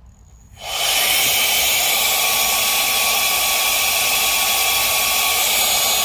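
Handheld battery mini blower switched on about half a second in and running steadily at full speed, a loud rush of air with a whine and a steady tone, until it stops at the very end. Its nozzle is pressed into a backpacking air mat's inlet that it fits loosely, so air leaks out and the mat inflates poorly.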